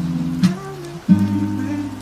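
Acoustic guitar music, with chords strummed about half a second in and again just after a second, over a steady hiss of rain.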